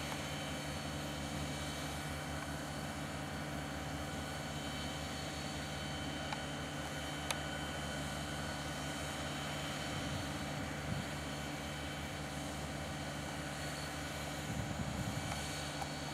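EMD GP40 diesel-electric locomotives idling, their 16-cylinder turbocharged EMD 645 engines giving a steady low drone. A low rumble swells slightly near the end.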